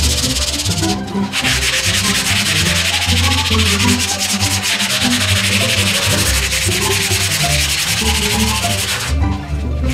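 Folded 80-grit sandpaper rubbed by hand over Bondo body filler on a car's quarter panel: a steady scratchy hiss of quick back-and-forth strokes, breaking off briefly about a second in and again near the end.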